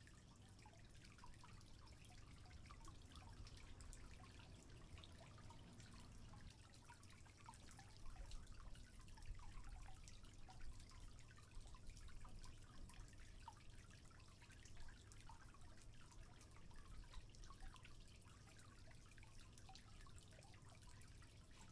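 Faint trickling water with small scattered drips, a little busier in the middle, over a low steady hum.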